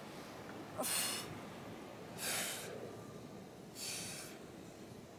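A woman's sharp breaths out, one with each crunch as she curls up, about every one and a half seconds: three short breathy exhales.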